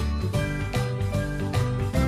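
Instrumental background music with a steady beat of about two strokes a second over held bass notes.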